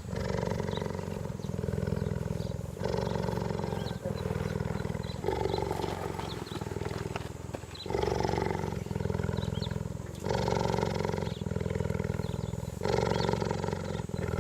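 Cheetah purring steadily, a continuous low pulsing sound that swells and eases with each breath about every two and a half seconds.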